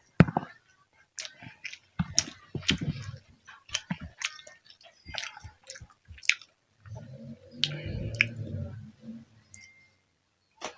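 Close-miked chewing of crunchy food, with wet mouth clicks and sharp crunches at an uneven pace, and a longer low rumbling stretch about seven seconds in.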